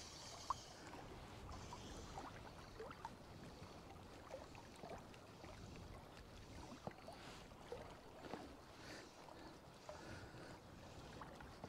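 Faint small waves lapping against the stones at the water's edge of a loch, with soft scattered little splashes and plops.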